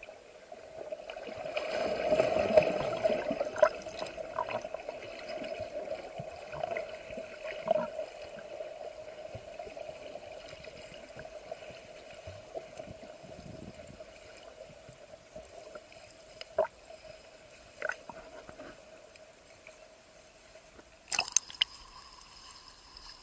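Underwater sound picked up by a camera just below the sea surface: muffled sloshing and gurgling water with a steady hum and a few sharp clicks. Near the end the camera breaks the surface with a short burst of splashing.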